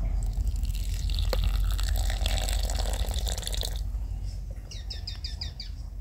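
Hot water pouring from a thermos into a gourd of yerba mate for chimarrão, running for nearly four seconds and then stopping. Near the end a bird gives a quick run of about seven short falling chirps.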